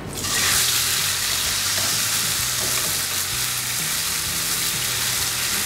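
Marinated chicken coated in green cafreal masala paste frying in hot oil in a non-stick pan: a loud, steady sizzling hiss that starts suddenly as the chicken is laid in.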